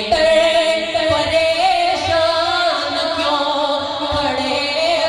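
A man singing Urdu Islamic devotional verse in the naat style, a solo voice holding long, wavering notes.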